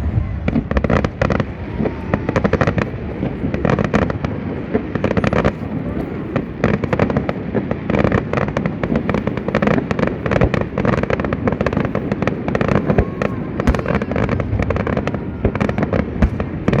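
Fireworks display going off in a rapid, continuous string of bangs and crackles, with no pause between bursts.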